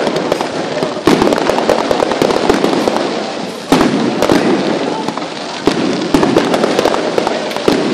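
Aerial fireworks going off in quick succession: a dense run of bangs and crackles, with sudden louder bursts about a second in, a little before four seconds and about six seconds in.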